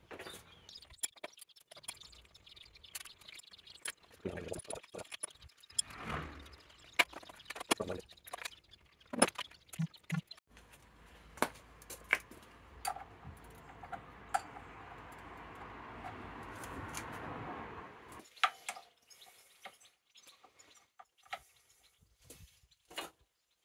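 Hand tools clicking and clanking on metal as a motorcycle's indicators and front wheel fittings are unbolted with a ratchet and spanners. A steady noise builds for about seven seconds in the middle, then stops abruptly.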